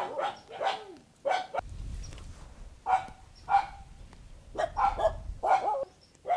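A dog barking repeatedly, about ten short sharp barks in uneven bursts, with a low rumble underneath through the middle.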